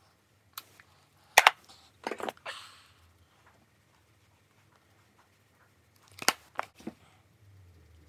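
Objects handled close to the microphone: a few sharp knocks and clatters in two clusters, the first about a second in with a short rustle after it, the second near the end.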